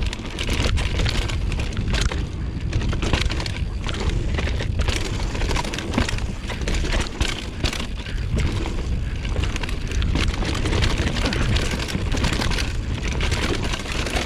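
Mountain bike riding down a dirt trail, heard from a GoPro on the rider. Wind rumbles steadily on the microphone, and frequent short clicks and rattles come from the bike and its tyres over the ground.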